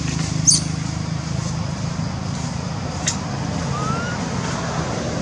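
A steady low engine hum, with two sharp clicks and a faint, short rising squeak a little under four seconds in.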